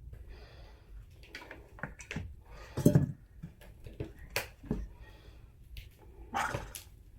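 Handling noises: scattered clicks and knocks, with one heavier thump about three seconds in and a few short breathy hisses between.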